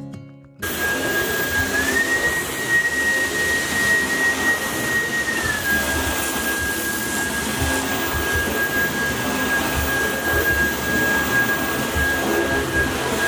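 Cordless stick vacuum switching on and running over a rug, a steady rush of suction with a high motor whine. The whine steps up in pitch after about a second, holds for a few seconds, then drops back to its first pitch.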